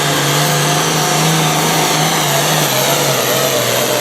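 Pro Farm pulling tractor's diesel engine running hard at high revs under load, pulling the sled, with a steady engine note and a thin high whine above it.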